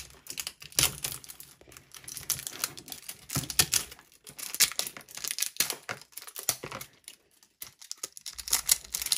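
Clear plastic film crinkling and crackling as it is peeled off a hard plastic toy case, in irregular clicks and crackles, with a quieter lull about seven seconds in.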